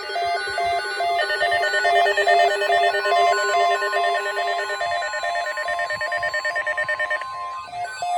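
Several weather alert radios going off together: electronic alarm beeps pulsing about three times a second over layered steady tones, with the single long NOAA Weather Radio warning alarm tone joining about three seconds in and stopping near the end. The alarms signal an incoming severe thunderstorm watch.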